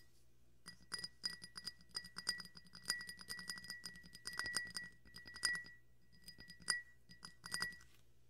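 Glass tumbler being tapped by hand in quick, irregular runs, each tap ringing at the same clear pitch. The tapping starts just under a second in and stops shortly before the end.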